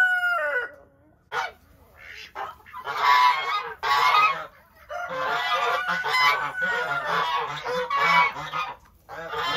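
A rooster's crow trails off in the first half second. From about three seconds in comes a run of loud, rough honking calls in short repeated bursts.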